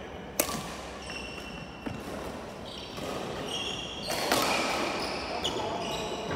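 Badminton rally: a racket smashes the shuttlecock with a sharp crack about half a second in, followed by more hits near the two- and four-second marks. Sports shoes squeak on the wooden court floor between the shots.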